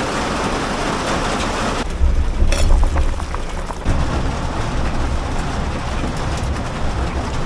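Heavy rain hissing steadily; about two seconds in it gives way to a strong low rumble with scattered ticks of drops.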